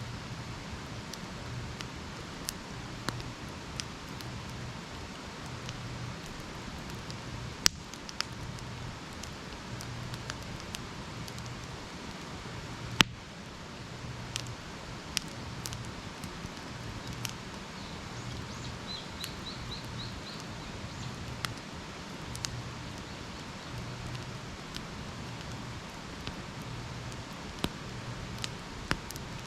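Wood campfire burning with a steady hiss and scattered crackles, with two sharp, loud pops about eight and thirteen seconds in.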